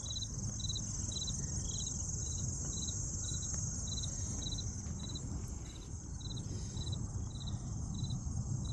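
Crickets chirping in an outdoor chorus: a regular chirp about two times a second over a steady high-pitched trill from other insects, with a low steady rumble underneath.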